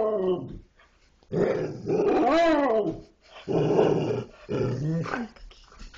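Dogs 'talking': long, growly vocal calls. One dies away at the start, then about a second in come three more of roughly a second each, the first rising and then falling in pitch.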